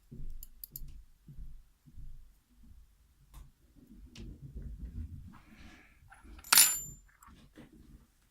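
Small metal lock pins and tools handled with scattered light clicks and taps, then late on a single sharp metallic clink with a short bright ring as a tiny metal part drops onto a hard surface.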